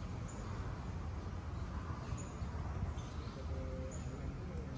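Outdoor background: a steady low rumble with a few brief, high bird chirps now and then.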